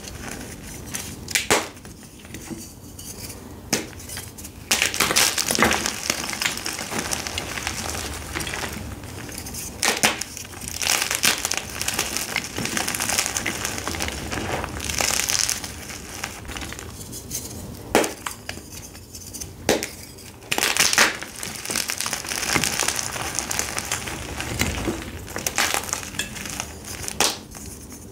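Soft dyed gym chalk blocks crushed and crumbled in bare hands: dry, crunchy crumbling and grinding through loose powder, with several sharp snaps as blocks break apart.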